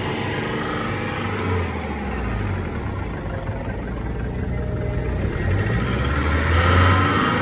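Mitsubishi FE 3.0L diesel engine running steadily, its low exhaust note swelling louder twice.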